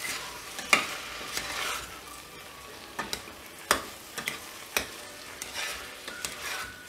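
Metal spoon stirring soaked rice and moong dal through frying chicken in a stainless steel pressure cooker, scraping and clinking against the pot several times over a steady sizzle.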